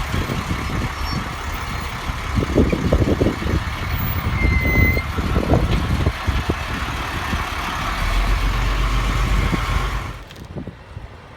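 A motor vehicle running with a steady low rumble and some uneven knocks; the sound drops away abruptly about ten seconds in.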